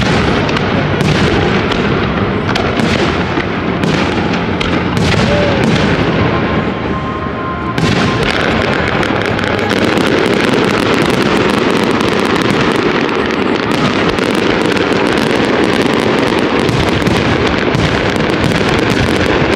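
Fireworks show: a run of separate loud bursts, then about eight seconds in an unbroken barrage of rapid bangs and crackle.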